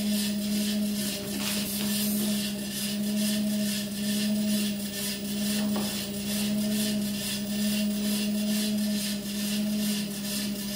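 Walking-pad treadmill running: a steady low motor hum with a fainter higher tone, and a quick, even ticking from the moving belt, swelling and fading every couple of seconds.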